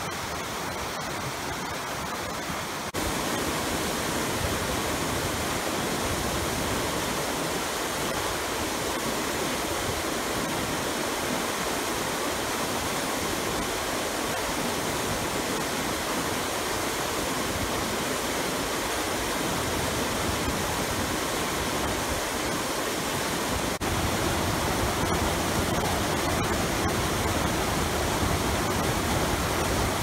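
Mountain river rushing over rocks and small waterfalls: a steady, dense wash of water that jumps louder about three seconds in and again a few seconds before the end.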